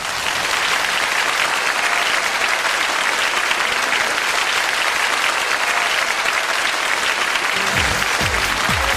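Audience applauding steadily. Near the end, a music track with a heavy, regular beat comes in underneath.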